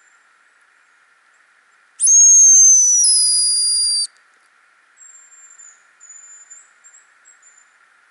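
Hazel grouse decoy whistle blown close by: one loud, very high, thin whistle lasting about two seconds, starting about two seconds in and stepping down in pitch halfway through. Fainter high whistles follow.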